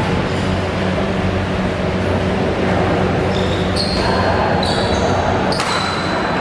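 Badminton rally in a large hall: sharp racket strikes on the shuttlecock, roughly one a second, begin about halfway through, over a steady low hum and background chatter.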